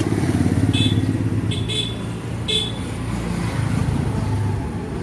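Yamaha Ray BS6 scooter's fuel-injected single-cylinder engine running at idle with its low-speed stalling and misfiring fault, which the mechanic traces to a loose earth wire leaking current at the ignition coil.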